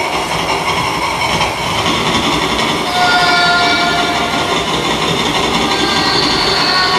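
Live improvised electroacoustic noise performance: a dense, steady wash of noise with a low rumble underneath and thin held tones drifting in and out over it, one entering about three seconds in and a higher one near the end.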